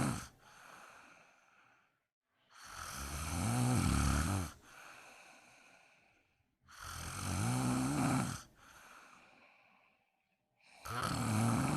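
A woman snoring in a slow, regular rhythm. Each in-breath is a loud, low, pitched snore about two seconds long that grows louder, followed by a softer breath out, with a new snore about every four seconds.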